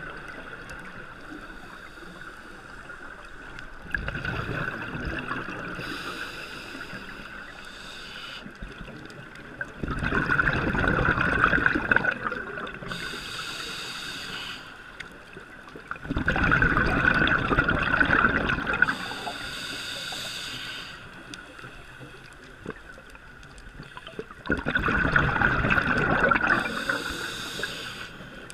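Scuba diver breathing through a regulator underwater: three long, loud bubbling exhalations roughly seven seconds apart, each followed by the hiss of the regulator on the breath in.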